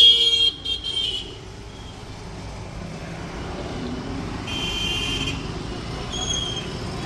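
Road traffic rumbling steadily, with vehicle horns sounding over it. A loud horn cuts off about a second in, another sounds briefly around the middle, and a short toot comes near the end.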